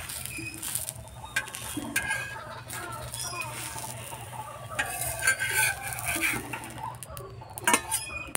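Steel spatula scraping and clinking on an iron griddle as a rolled semolina pitha is turned and lifted onto a steel plate, with the loudest clinks about five seconds in and near the end. Birds call in the background.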